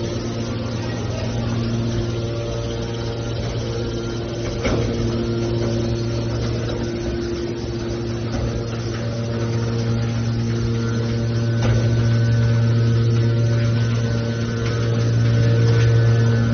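Hydraulic scrap metal baler press running, with a steady low machine hum and a few sharp metallic clicks.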